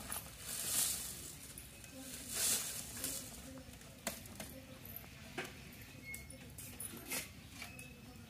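Dry black gram (mashkalai) pods rustling as they are tipped out of a woven basket onto a cloth sheet, in two short pours near the start, followed by a few faint clicks.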